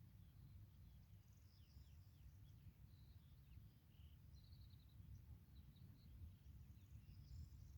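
Faint birdsong: scattered short chirps and a quick trill of rapid notes about halfway through, over a steady low rumble.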